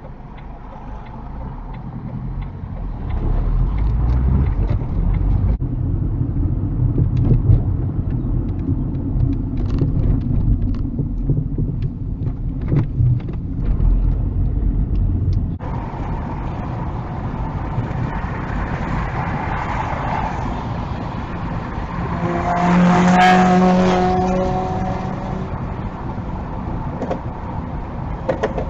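Car road noise and engine hum heard from inside the cabin through a dash cam's microphone, as the car drives along. About 23 seconds in, a louder droning tone swells and fades while another car passes close alongside.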